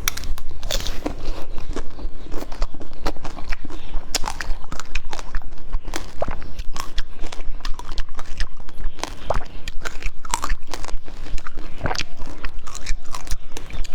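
Close-miked eating: a person biting and chewing food, with a dense, irregular run of sharp crunches and mouth clicks.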